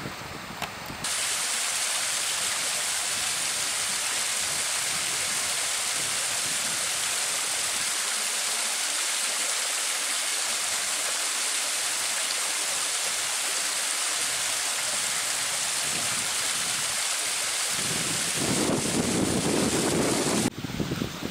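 Steady hiss of rushing water at the canal edge, starting abruptly about a second in and stopping abruptly just before the end, with a lower rumble joining in the last few seconds.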